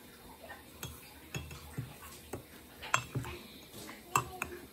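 Spoon clinking against a glass mug while stirring chia seeds into a thick fruit smoothie: a series of short, irregular clinks.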